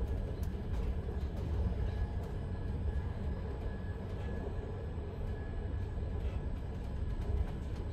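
Inside a Swiss DPZ double-deck coach hauled by an Re 450 locomotive at speed: a steady low rumble of wheels on rail, with a faint steady high tone and scattered light clicks.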